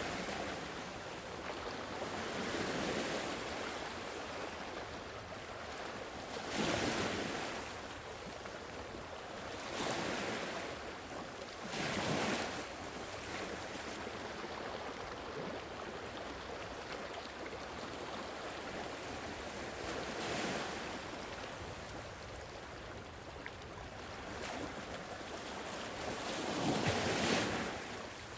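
Sea waves on a shore: a steady wash of surf with about six waves swelling and breaking, the loudest near the end.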